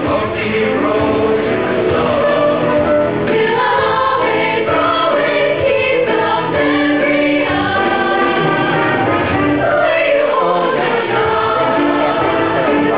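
High school show choir singing together in parts, with sustained chords that shift from note to note.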